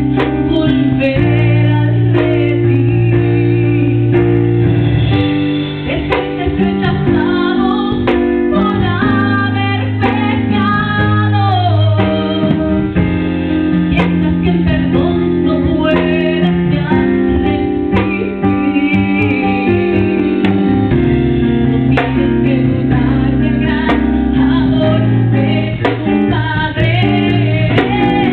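A woman singing solo into a handheld microphone, holding long notes that bend up and down, over steady instrumental accompaniment.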